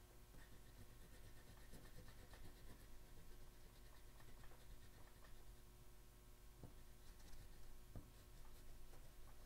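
Faint scratching of a pink pastel stick shading on paper, with two light knocks in the second half.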